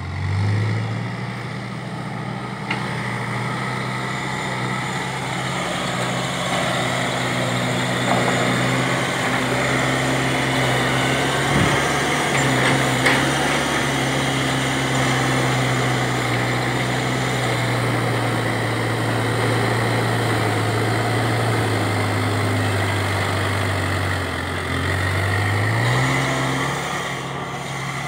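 Diesel engine of a Case 770 EX backhoe loader revving up and working hard under load as the machine pushes its front bucket into a pile of soil. The engine note eases off briefly near the end, then climbs again.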